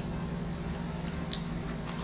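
Soft clicks and crackles from fingers picking at a slice of pizza crust, a few of them about a second in, over a steady low hum.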